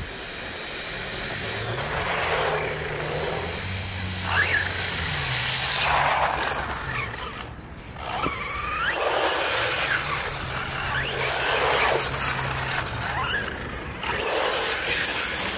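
Two small electric 1/16 RC cars, a brushless HSP Kidking Pro and a brushed WLtoys A959 Vortex on 2S LiPo, driving hard on wet asphalt. Their motor and gear whine rises and falls as they speed up and pass, over a hiss of tyres on the wet surface, with a couple of short squeals.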